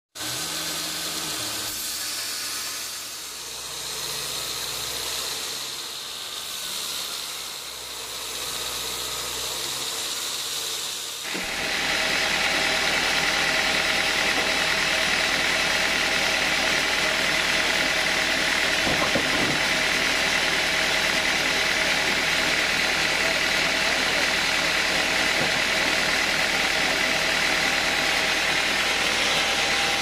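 Band sawmill machinery running steadily with a hum and a high whine. About eleven seconds in it jumps suddenly louder and then holds steady.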